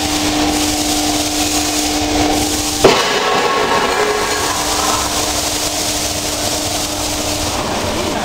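T-BREAK M scrap crusher working on aluminium alloy rims: a steady machine hum under grinding, rubbing metal noise, with one loud metallic clang about three seconds in that rings on briefly. The hum stops near the end.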